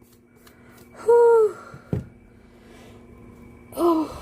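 A woman's short high vocal exclamations: an arching 'ooh' about a second in and an 'oh' near the end. A single sharp click falls between them.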